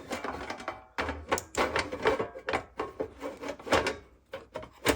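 Irregular clicks, knocks and clatter of a Line 6 FBV3 foot controller's casing and parts being handled and fitted back together.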